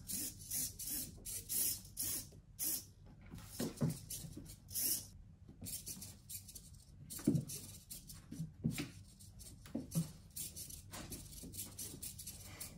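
Short bursts of scuffling and rubbing as cats' paws scrabble and slide on a hardwood floor, mixed with brief whirring blips from the small hobby servo motors swinging the laser pointer.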